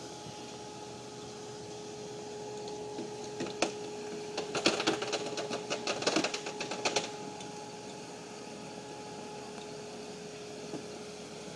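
Jeep Cherokee XJ crawling up a rocky slope, its tyres crunching and scraping over loose rock: a rapid run of clicks and crackles from a few seconds in to about the middle, over a steady faint hum.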